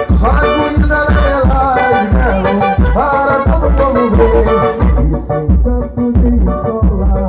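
Bumba-meu-boi style festival music: singing over a heavy, steady drum beat. The voice drops away about two-thirds of the way through while the drums and instruments carry on.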